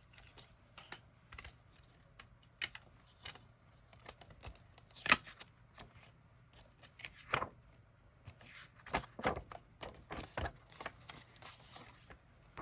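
CD single packaging being handled by hand: scattered clicks, taps and rustles of plastic and card, the sharpest about five seconds in, with a short stretch of steady rustling near the end.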